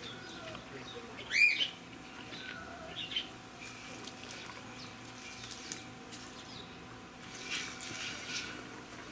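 A short bird call that rises and falls in pitch about one and a half seconds in, with a few fainter chirps later.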